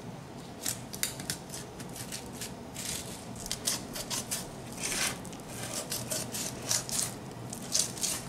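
Fillet knife rasping through a redfish's tough scaled skin and along its bones as a fillet is cut free: a run of irregular, scratchy strokes.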